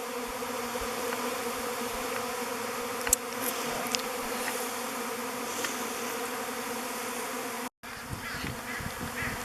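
A swarm of honeybees buzzing in flight, a steady many-winged hum with no rise or fall, as the swarm gathers at and enters a log hive. The sound cuts out for a moment near the end.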